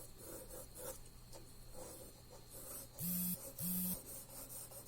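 Light pencil strokes scratching on paper, then two short, loud mechanical buzzes of about a third of a second each, a moment apart, each with a steady low hum.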